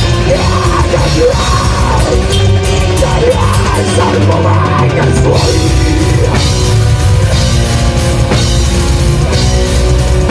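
Black metal band playing: distorted electric guitars and bass over a drum kit with dense, fast cymbal and drum hits, loud and unbroken.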